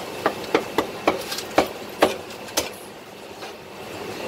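Meat cleaver chopping through a roast duck onto a thick wooden chopping block: a quick run of about eight sharp chops that stops about two and a half seconds in, over a steady background hum.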